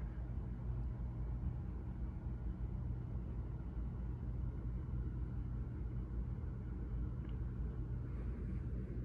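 Miller & Kreisel K-9 powered subwoofer with an 8-inch woofer playing deep bass: a steady low rumble with no higher sounds above it.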